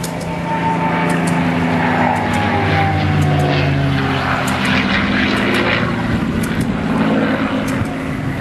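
Propeller warbirds making a low, loud pass: the V-12 piston engines of two P-51 Mustangs chasing a Messerschmitt Me 108, several engine tones dropping in pitch as the aircraft go by.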